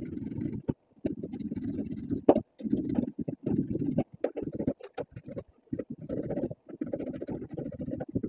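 Hand tools working the screws that hold a pickup's plastic wheel well liner: short bursts of clicking and scraping with brief pauses between them.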